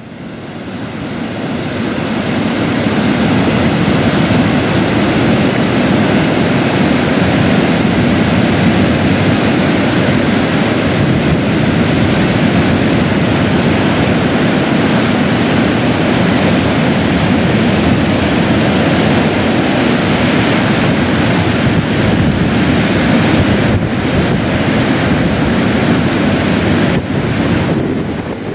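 Steady, loud rushing of water, fading in over the first few seconds and easing off near the end.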